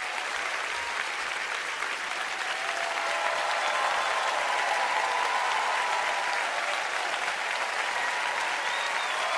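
A large theatre audience applauding steadily, the clapping growing slowly louder.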